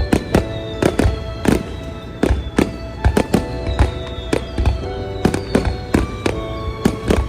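Fireworks going off in quick succession, many sharp bangs a second, over music with sustained tones and a repeating high falling line.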